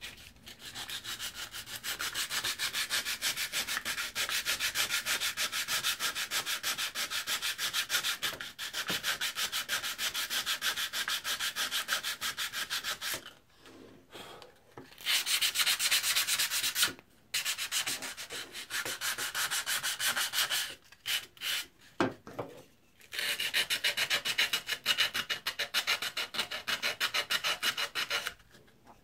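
Sandpaper rubbed back and forth by hand along an old steel drawknife blade in quick rasping strokes, scouring off surface crust. The strokes stop for a few short pauses.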